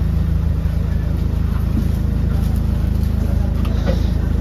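Double-decker bus's diesel engine idling steadily at a low, even pitch, heard from the lower deck, with a few faint knocks and rustles.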